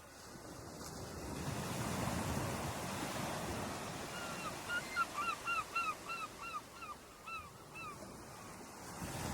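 Ocean waves washing onto a shore, swelling up over the first two seconds. About halfway through, a bird gives a quick run of about a dozen short, down-curving calls, about three a second, lasting some three seconds.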